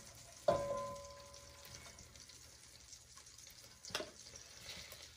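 A knock about half a second in sets the glass bowl ringing as diced leeks are scraped from it with a wooden spoon into a pot. Under it, a faint sizzle of leeks going into melted butter, with a second knock and a few small ticks near four seconds.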